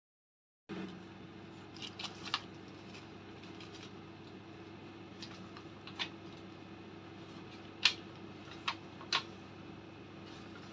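Philips HD9255 air fryer running: a steady fan hum with a low held tone, broken by about six sharp clicks, the loudest about eight seconds in.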